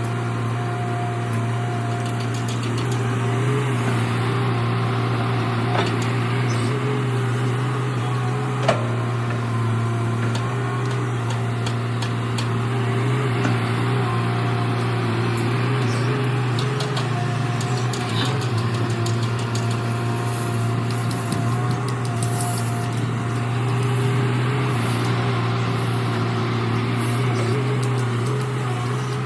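Diesel engine of an earth-moving machine running steadily under work, with scattered light clicks and one sharp knock about nine seconds in.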